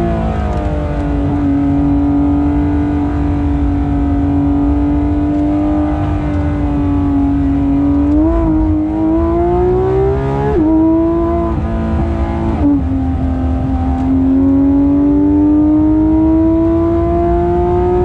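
Porsche 991.2 GT3 RS's flat-six engine running on track in the wet. It holds a fairly steady note for several seconds, then climbs in pitch. The pitch drops sharply twice, a couple of seconds apart, as gears change or the throttle comes off, and then climbs slowly again, with steady road and spray noise underneath.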